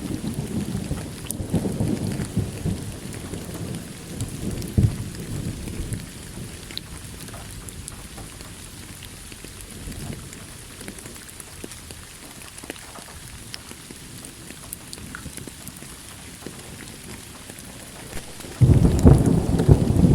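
Thunderstorm with steady rain: a thunder rumble dies away over the first few seconds, rain hisses with scattered drops and drips, and a new loud thunderclap breaks in suddenly near the end.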